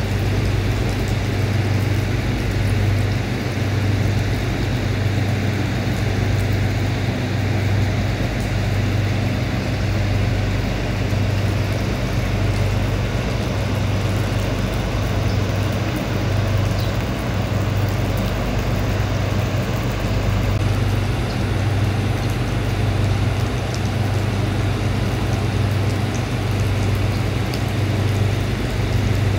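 Steady rain: an even hiss over a constant low rumble.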